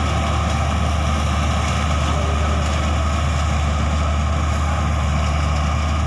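Kuldeep combine harvester running steadily as it cuts the crop: a continuous low engine drone with an even mechanical whine above it.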